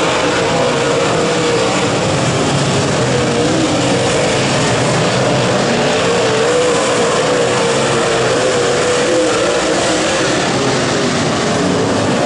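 Several late model race cars' V8 engines running hard around the track in a loud, steady drone. The engine pitch rises and falls as the cars pass and go through the turns.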